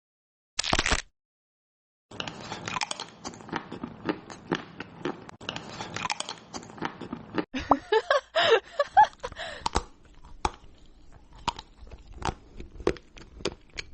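Close-up crunchy chewing and biting: a short crunch, then a long run of irregular crunches and mouth clicks, with a brief wavering pitched sound about eight seconds in.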